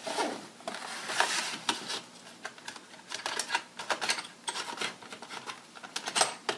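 Irregular light clicks, taps and rattles of plastic and small metal tools being handled: a precision screwdriver set and a clear plastic storage box being opened and picked through, with sharper clicks about a second in and near the end.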